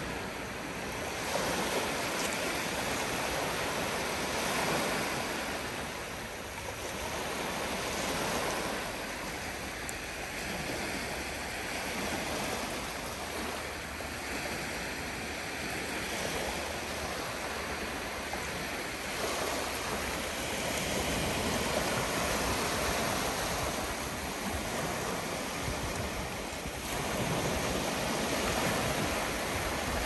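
Calm Black Sea surf: small waves breaking and washing up the shore, the hiss swelling and easing every few seconds.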